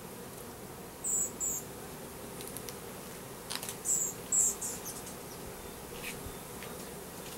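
Steady hum of a swarm of Russian/Carniolan honey bees buzzing around a newly installed hive. Two pairs of short, high-pitched chirps stand out, about a second in and again about four seconds in.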